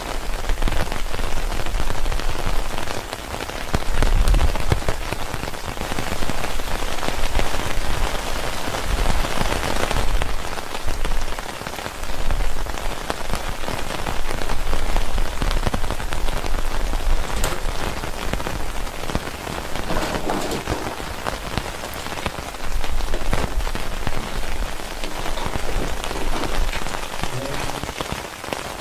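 Heavy rain falling steadily, a dense hiss that swells and eases a little.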